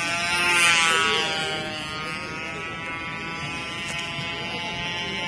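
A control-line model aeroplane's small engine buzzing at high revs, its pitch and loudness swelling and fading as the plane circles through an aerobatic manoeuvre, loudest about a second in.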